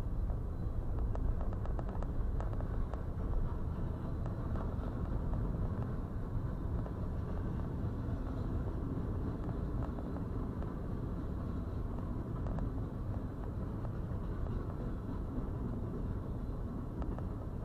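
Freight train cars rolling past a grade crossing: a steady low rumble of steel wheels on rail, heard from inside a stopped car.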